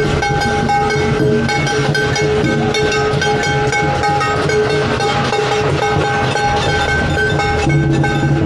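Street procession music: horns holding long, steady notes over a continuous clatter of drums and cymbals.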